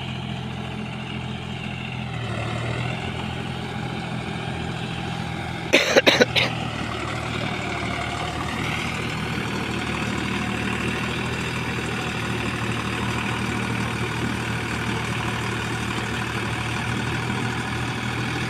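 Deutz-Fahr Agrolux 50 4WD tractor engine running steadily while pulling an implement through a flooded rice paddy, its note dipping briefly and recovering a couple of times. A burst of several loud, sharp knocks about six seconds in.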